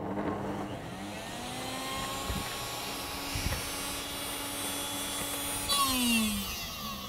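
Countertop blender motor running, grinding soaked dates with almond butter into a thick paste. Its pitch shifts about six seconds in as the load on the blades changes.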